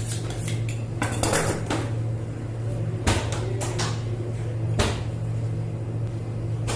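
Kitchen clatter: irregular knocks and clinks of utensils and dishes on a work surface, over a steady low hum.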